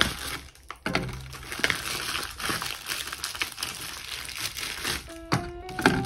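Small juice cartons being handled and set down one by one into a clear plastic fridge organizer bin: a crinkling rustle with a few sharp knocks of carton on plastic. Soft background music plays under it.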